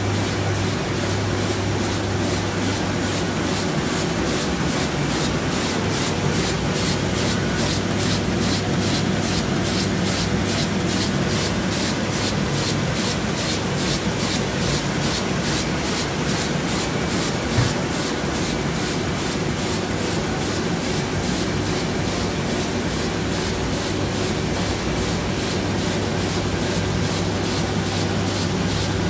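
Heidelberg Speedmaster SM 74 four-unit sheetfed offset press with coating unit running in production: a steady mechanical din over a low hum, with a fast, even beat from the sheet cycle. A single short click sounds a little past halfway.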